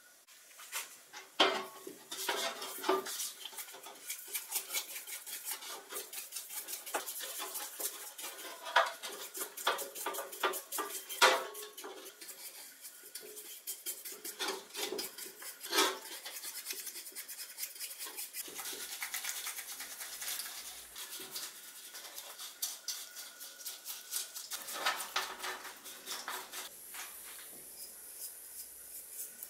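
An old hand oiler's metal can and small parts clinking and knocking as they are handled, with a brush scrubbing the can in a basin of water. Several sharp clinks stand out.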